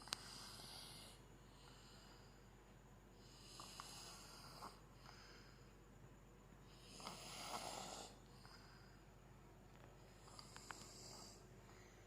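A small child snoring softly in sleep, with four snoring breaths about every three and a half seconds, some with small clicking sounds.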